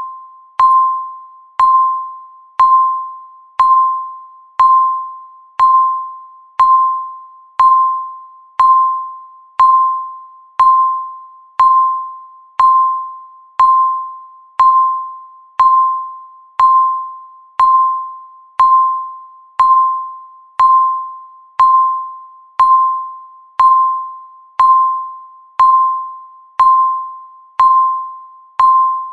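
Countdown timer's electronic tick, a short bell-like ding at one steady pitch that dies away quickly, repeating once a second.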